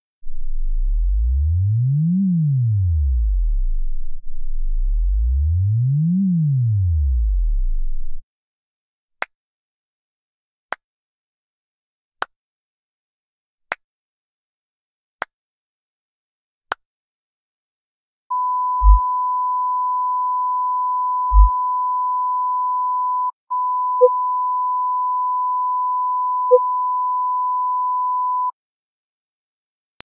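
Speaker test signals. First come two low bass sine sweeps, each gliding up and back down over about four seconds. Then six sharp clicks about a second and a half apart, for checking room echoes, and then a steady high-pitched test tone, broken once near the middle, with two brief low thumps and two short lower blips.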